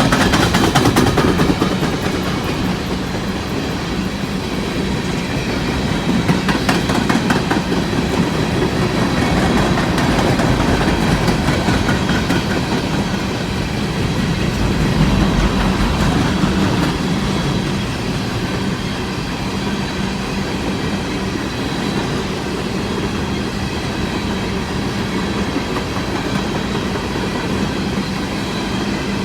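Empty coal train cars rolling past with a steady rolling noise, their steel wheels clacking over rail joints.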